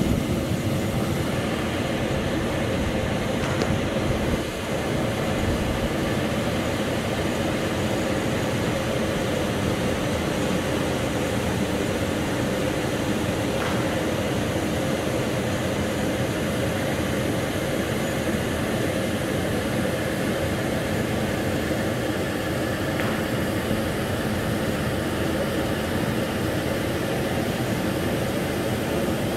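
Steady rushing hum of air conditioning filling a large hall, with a few faint steady tones running through it.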